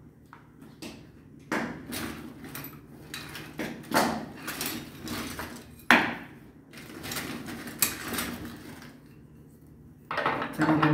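Scattered sharp knocks and clinks of a brass pipe fitting and hand tools being handled on a water heater's inlet, with rustling between.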